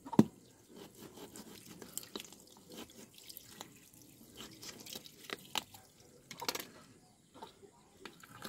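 Thin stream of tap water trickling and dripping onto a whole chicken and a wet stone slab, with scattered sharp clicks and knocks as a knife and hands work the bird.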